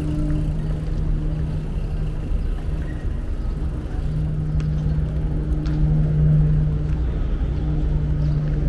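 An engine running steadily with a low, even hum and rumble, with a few faint clicks over it.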